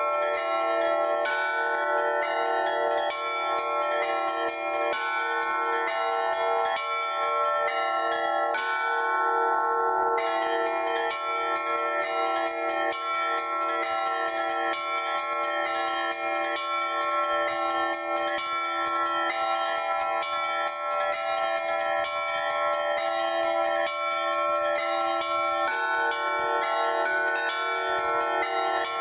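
Russian Orthodox church bells rung by a single bell ringer in an improvised zvon: rapid strikes on small high bells over the steady ringing of larger bells. The small high bells stop for about a second near the middle, then resume.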